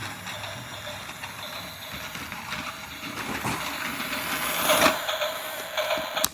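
Toy train running: a steady mechanical hiss with a faint whine, swelling briefly about two-thirds of the way through and cutting off suddenly at the end.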